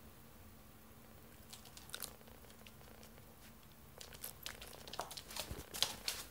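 Scattered sharp clicks and crackly rustling, sparse at first and busier after about four seconds, as a small Pomeranian-type dog scrabbles and paws up close to the person.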